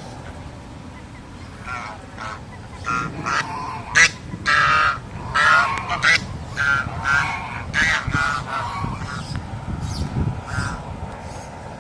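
Waterfowl honking: a run of about a dozen short, harsh calls at irregular intervals, loudest about four seconds in, over a low background rumble.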